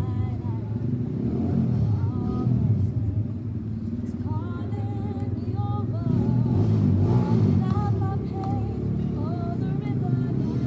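Choir singing, with female voices carrying the melody in phrases a second or two long over a steady low rumble.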